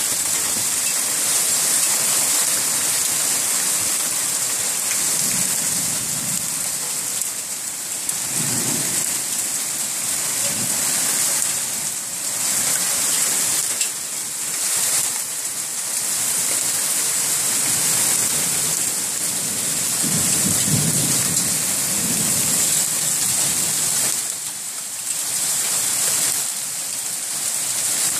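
Heavy rain pouring down in a summer thunderstorm, a steady loud hiss of drops on the street and balcony. A few low rumbles swell up under it, about a third of the way in and again past the middle.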